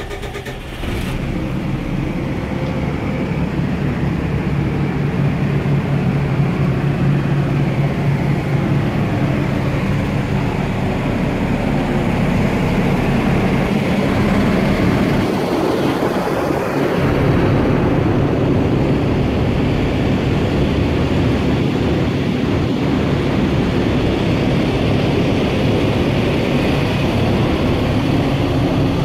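Diesel engine of a Wright-bodied DAF London bus running at idle just after being started, a steady low drone that swells over the first few seconds and then holds even.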